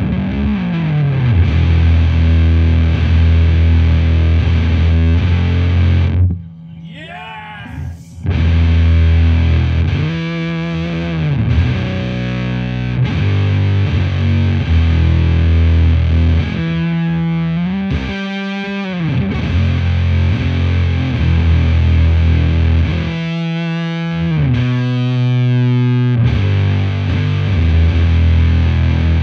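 Fender Stratocaster played through a Devi Ever Big Distortion Sound Machine fuzz pedal into a Laney VC30 valve amp, playing a heavy, thick fuzz riff of sustained low notes with slides. About six seconds in it drops to a quieter passage of gliding notes for a couple of seconds before the full fuzz returns.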